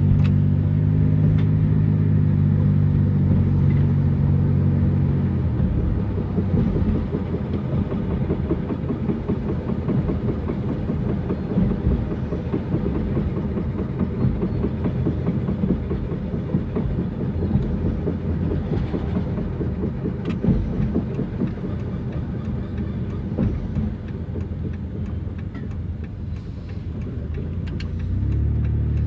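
1999 Dodge Grand Caravan with a failing transmission, running. A steady low engine drone for the first five seconds gives way to a rough, uneven rattling noise, and the steady drone comes back near the end.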